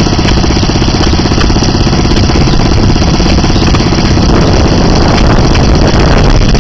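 1942 Scammell petrol-engined fire pump running steadily, with a fast, even firing beat.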